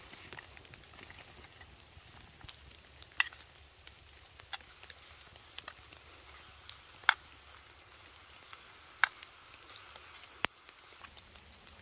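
Small twig campfire crackling, with a few sharp pops spread through, over a faint sizzle of chicken heating in a metal mess-kit cup set on the fire.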